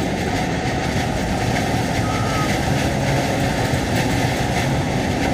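Steady road and engine noise inside the cab of a moving truck.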